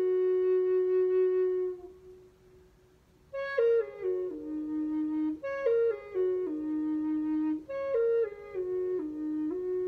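E-flat end-blown flute of old-growth Atlantic white cedar playing a slow melody. A held low note ends about two seconds in, and after a short pause come three phrases, each stepping down from a high note to settle on a long low note.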